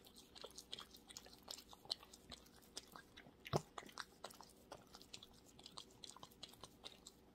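Blue French bulldog licking and chewing food from fingers: many faint, quick wet clicks and smacks, with one louder click about three and a half seconds in.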